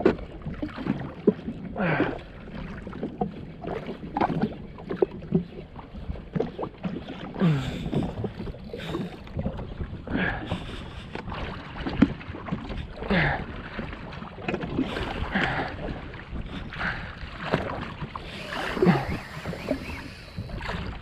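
Water slapping and gurgling against the hull of a drifting jet ski in irregular splashes, with light wind on the microphone.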